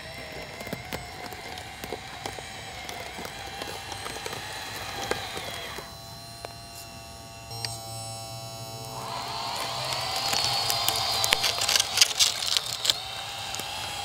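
Electric drive motors of a 1/14-scale RC bulldozer whining as it pushes soil, with its metal tracks clicking and rattling. The sound grows louder with dense rattling in the second half.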